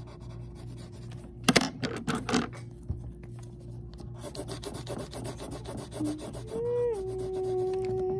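Colored pencil scratching on paper in quick back-and-forth coloring strokes, with a few louder strokes about a second and a half in. Near the end a voice hums one note that dips slightly and then holds.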